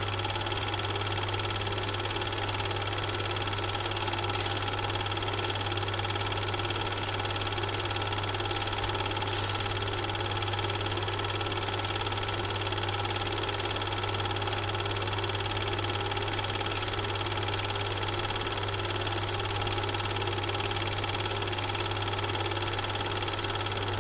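A steady motor hum and whirr with a strong low hum and a few fixed higher tones, unchanging throughout. It does not come from the trains on screen, since the film is silent.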